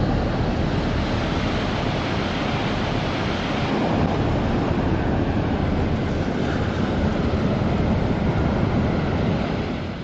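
Ocean surf breaking and washing up a sandy beach: a steady, continuous rush of waves.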